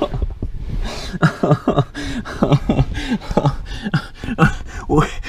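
A man grunting and panting with effort, short voiced breaths about three a second.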